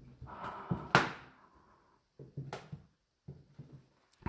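Footsteps along a wooden corridor floor, soft low thuds with some rustle, and one sharp knock about a second in that is the loudest sound.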